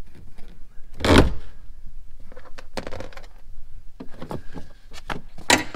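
Plastic Christmas-tree body clips being pried out of a car's rear package tray with an upholstery tool. There is a loud pop about a second in, then scattered clicks and the rustle of plastic trim being handled, and another sharp snap near the end.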